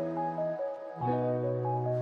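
Instrumental background music: a slow melody over held bass notes that change about once a second.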